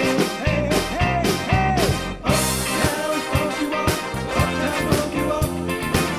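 Rock band playing live: drum kit, electric guitar and bass guitar in an upbeat number, with a melody line that slides between notes.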